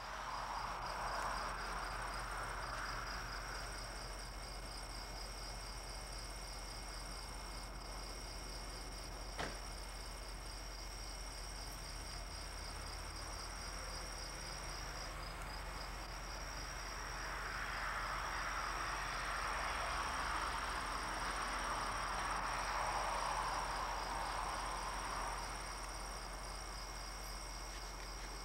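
Insects trilling steadily outdoors, a high-pitched, evenly pulsing chirr. A soft rushing noise swells near the start and again for several seconds in the second half, and there is one sharp click about nine and a half seconds in.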